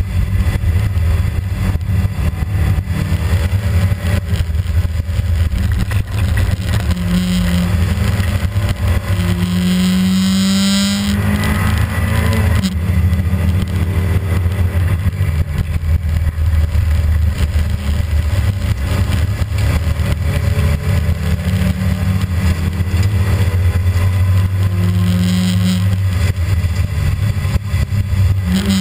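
Rally car's engine heard from inside the cabin, driven hard along a stage: revs rise and fall with throttle and gear changes. About ten seconds in there is a long climb to high revs that cuts off suddenly at the shift or lift.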